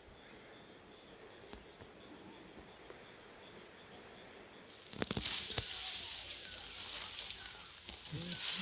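Very quiet at first, then a little past halfway a loud, continuous, high-pitched insect chorus starts suddenly, with a couple of knocks as it begins.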